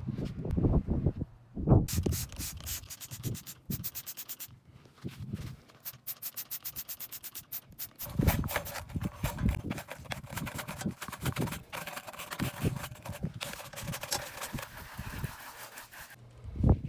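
A trigger spray bottle squirts cleaner onto metal grill grates in a quick run of short, even pumps. Then a grill brush scrubs back and forth across the grates in rough, repeated strokes.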